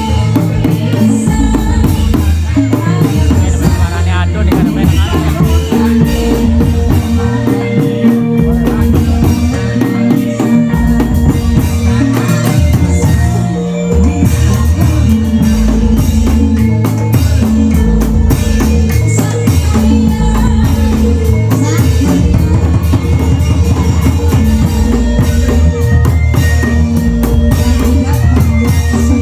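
Indramayu reog ensemble playing: steady, driving drumming with deep bass-drum beats and sharp snare-like hits under a held melodic line that steps between notes.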